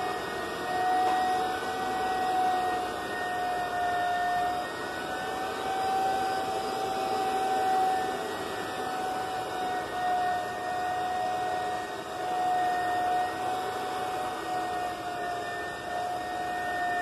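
Electric high-speed floor burnisher running with its pad spinning on a tiled floor: a steady motor whine whose pitch and loudness waver slightly as the machine is swung from side to side.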